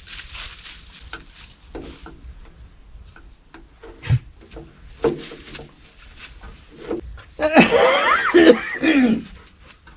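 Dog making playful vocal noises: a few short grunts, then a loud, wavering vocalization lasting about two seconds near the end.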